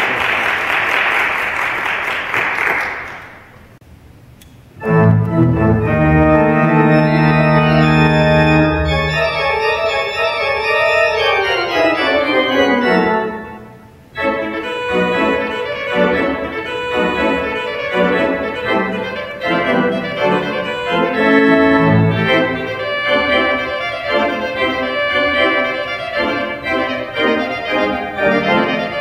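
Applause fades out. After a short pause a Schantz pipe organ begins: a held chord over a low pedal note, a downward run, a brief break, then fast running passagework over sustained lower notes.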